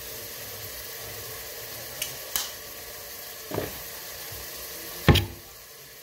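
Food sizzling steadily in a pot on the stove, with a few light clicks and one sharp knock about five seconds in.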